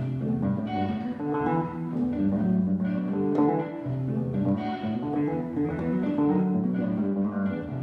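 Instrumental music of plucked strings, guitar with bass guitar, playing a run of sustained notes at a steady level.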